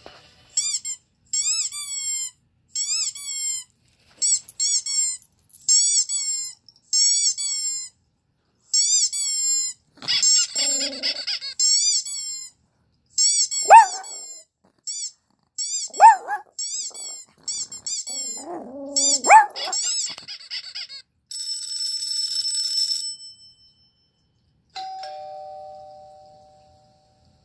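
A run of short, high chirping sounds played from a laptop speaker, then a Pomeranian barking sharply a few times about halfway through. Near the end a doorbell-like chime rings and fades.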